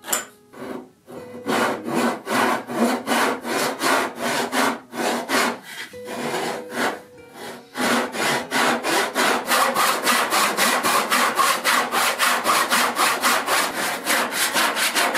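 Back saw cutting through the corner of a thick wooden slab, a rhythmic series of rasping strokes that settles into a faster, even pace in the second half.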